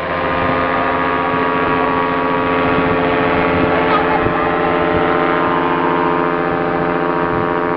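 Paramotor engine and propeller running at a steady, constant pitch: a continuous droning hum.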